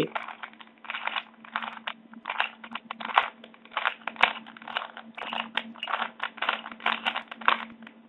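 A 3x3 Rubik's Cube's plastic layers being turned by hand, slowly, through a corner-swapping algorithm: a long run of irregular clicks and scrapes as each face turns.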